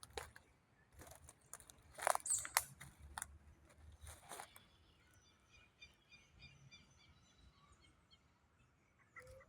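Small birds chirping outdoors: a run of short, repeated high notes in the second half. Several sharp clicks come earlier, the loudest about two seconds in.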